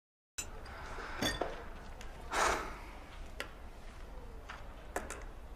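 Quiet classroom room tone with a few faint clicks and clinks of small items being handled in a clear plastic box on a desk, and one short soft swish about two and a half seconds in. It begins abruptly after a split second of dead silence.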